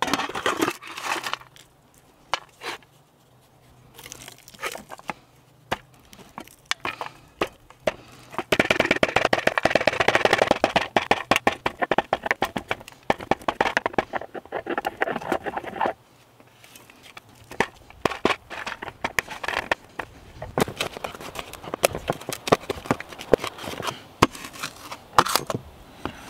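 Roasted acorns cracking and crunching under a hand-held rock pestle in a metal pan as they are ground into meal for flour. Scattered sharp cracks give way to a louder stretch of continuous grinding and rubbing in the middle, then more crushing near the end.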